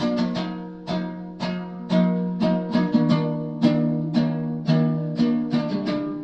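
Ukulele played in a steady rhythm, roughly two strong strums a second with lighter plucks between, each chord ringing and fading.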